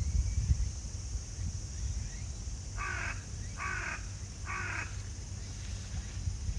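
A crow cawing three times, evenly spaced, over the low rumble of strong wind on the microphone.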